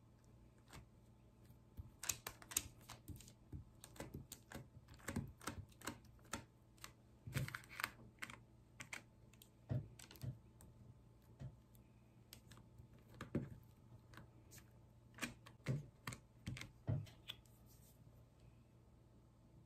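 Faint, irregular light clicks and taps, with a few soft knocks, over a low steady hum.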